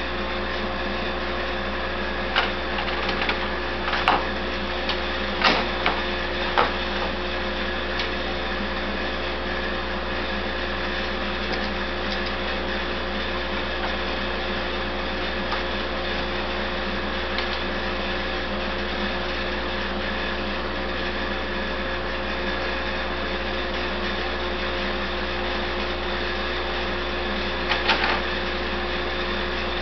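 A steady machine hum with a few held tones runs throughout. Over it come sharp clicks and knocks of hold-down clamps being set on the spoil board: several in the first seven seconds and a cluster near the end.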